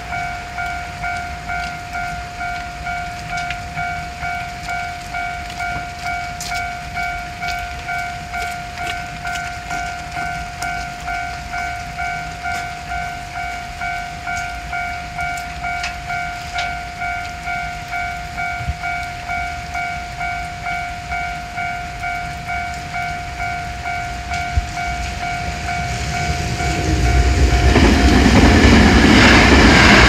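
Japanese railroad crossing's electronic warning bell ringing steadily at about two dings a second. Near the end a Kyoto Municipal Subway train arrives and passes close by: its wheel and running noise swells up and drowns out the bell.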